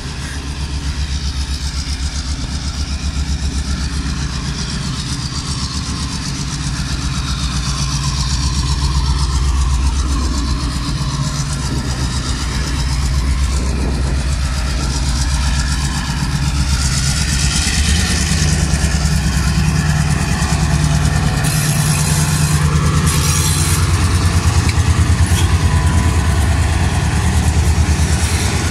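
Two diesel locomotives of different sizes running as they pull slowly past, a deep steady engine rumble that grows louder as they come close, with a few brief high-pitched noises near the end.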